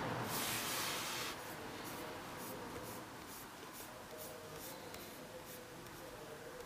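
Faint rubbing and scratching: a longer hissy rub near the start, then a string of short, soft strokes.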